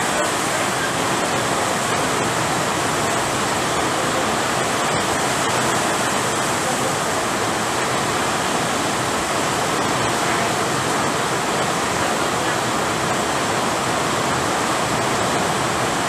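Heavy rain falling steadily, a dense, even hiss that does not let up.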